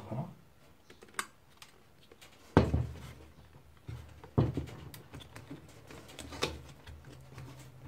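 Plastic clicks and knocks from a Lexmark MS510-series imaging unit being handled as its photoconductor drum is fitted back into the frame. There are about four sharp knocks with small ticks between them, and the loudest comes about two and a half seconds in.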